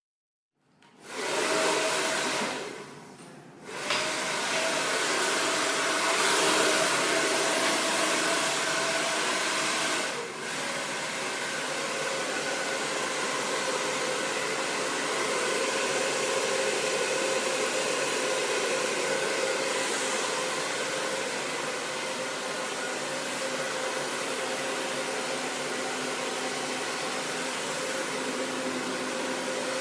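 Hair dryer switched on about a second in, blowing with a steady rushing noise and a motor whine. It drops off briefly around three seconds and comes back, then dips again about ten seconds in, after which the whine settles slightly lower.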